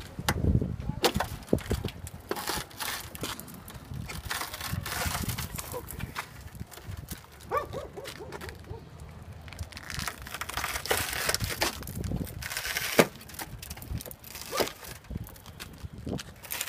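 Crunching and crackling of broken window glass and its channel being worked loose and pulled out of a pickup truck's door frame, with scattered sharp clicks and one louder crack near the end.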